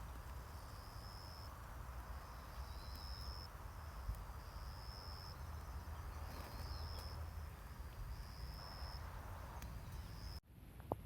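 An insect chirping outdoors: a high, thin trill about a second long, repeated every second and a half or so, over a steady low rumble. The sound cuts off suddenly about ten seconds in.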